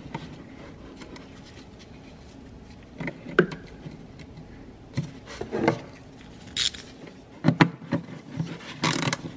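Handling noise as a wire is fed through the engine bay by gloved hands: scattered light clicks, scrapes and rubs of wire against plastic trim and metal, a few seconds apart.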